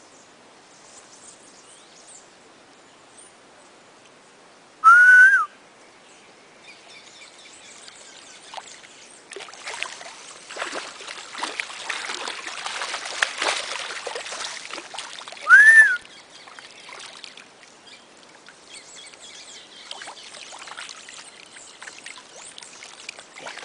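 Water splashing and churning in the river shallows through the middle of the stretch as a caiman thrashes, gripped by an electric eel. Two loud, short whistles about eleven seconds apart, each rising then falling in pitch, stand out over it.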